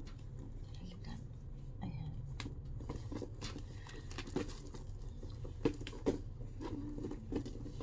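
Handling noise of a crossbody bag being put on and held up: scattered light clicks, taps and rustles of the bag and its strap, over a low steady hum.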